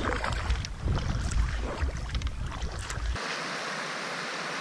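Paddle strokes splashing as an inflatable packraft is paddled, with wind rumbling on the microphone. About three seconds in, this changes abruptly to the steady rush of river water.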